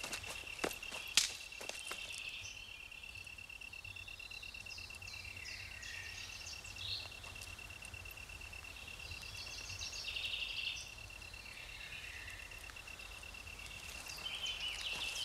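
Outdoor nature ambience: a continuous high insect trill, like a cricket's, with scattered bird chirps over it. A few sharp clicks in the first two seconds, the loudest about a second in.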